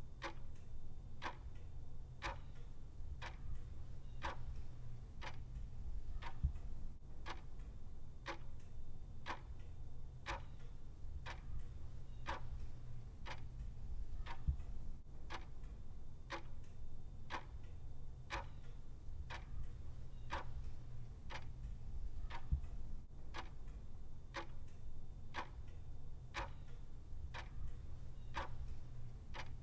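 Clock ticking in a steady, even tick-tock, about two ticks a second, over a low steady hum.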